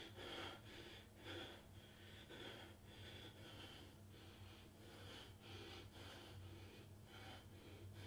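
A man's breathing from exertion, faint and rhythmic at about two breaths a second, over a steady low hum.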